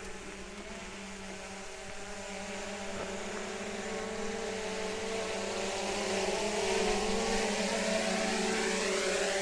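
DJI Mavic Air 2 quadcopter's propellers whining as it descends and lands, a steady multi-tone hum that grows louder as it comes down close. Near the end, as it settles onto the ground, the pitch of the higher tones shifts.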